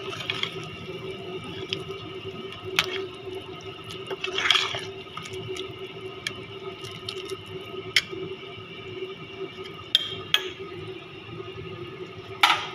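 Pot of chicken, tomatoes and bell peppers boiling on the stove, bubbling with scattered sharp pops over a steady hum. A loud sharp knock comes near the end.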